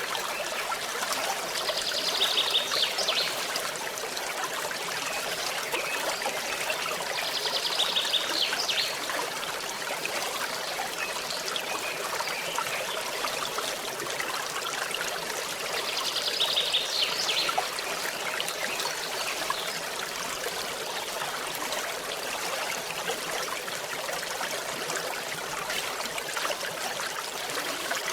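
Forest stream trickling steadily over stones. Three short high trills stand out over the water.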